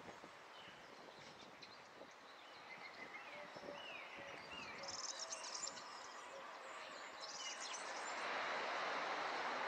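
Faint outdoor ambience with a few short descending bird calls about three to four seconds in, and two brief high rattling trills a little later. A steady hiss of background noise swells near the end.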